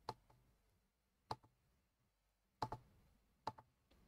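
Computer mouse clicking a few times, single sharp clicks about a second apart.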